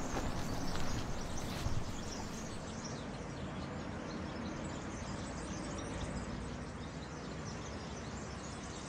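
Outdoor ambience: a steady hiss of background noise with a few faint high chirps, easing slightly after about two seconds.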